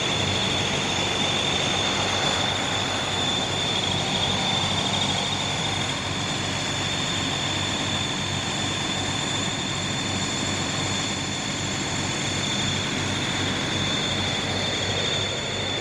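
Bus engine running steadily at idle, with a steady high-pitched whine over it.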